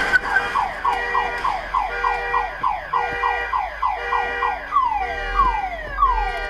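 Car alarm set off by a collision, cycling through its tones: quick falling chirps about three a second over an on-off steady beep, changing near the end to slower, longer falling wails.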